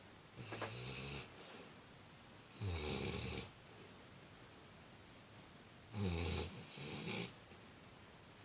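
Female Labrador retriever snoring loudly: four snores, the last two close together.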